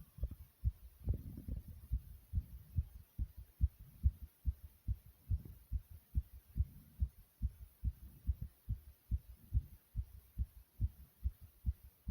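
Fast human heartbeat: rapid, regular low thuds, a few a second, heard from inside the chest.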